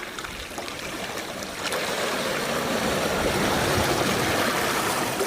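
Water splashing and trickling as muddy plastic toys are washed, growing louder about two seconds in.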